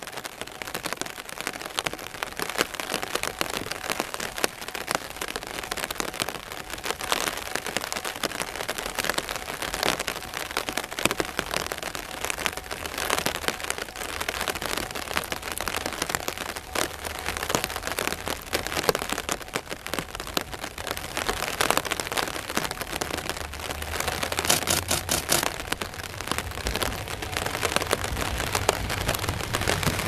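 Steady rain falling, a dense spatter of drop ticks close by. In the second half the low rumble of an approaching KiHa 40-series diesel railcar's engine builds up and grows louder toward the end.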